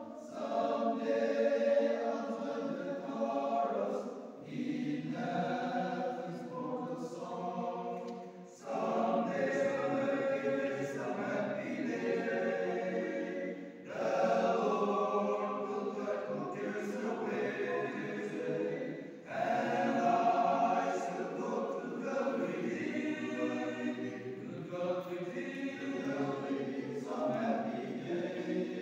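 Men's choir singing a cappella, in phrases of four to five seconds separated by brief pauses.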